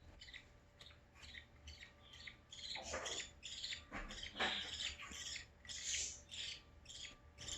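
Baby budgerigars giving rapid, raspy squawking calls, several a second, with a couple of louder ones around the middle: chicks begging to be fed.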